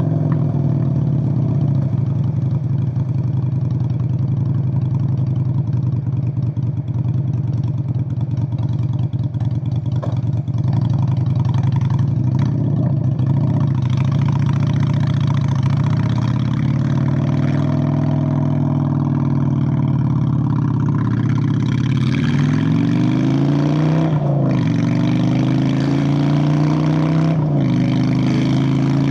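Honda Shadow 600 V-twin running through straight pipes under way. It holds a steady pace at first, eases off and back on around the middle, then accelerates, with two gear changes near the end where the pitch drops and climbs again.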